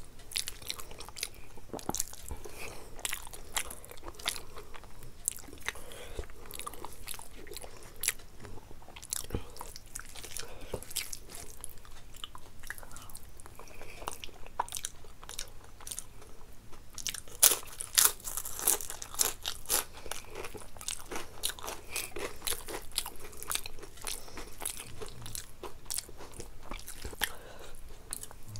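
A person biting and chewing crunchy food, with many sharp crunches and wet chewing; the loudest run of crunches comes a little past halfway.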